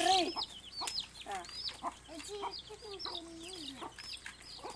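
Chickens clucking: a quick run of short, arched calls one after another.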